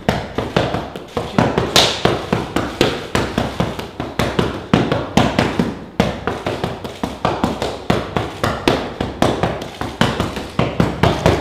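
Boxing pad work: gloved punches landing on focus mitts in a rapid, unbroken run of sharp slaps, several a second.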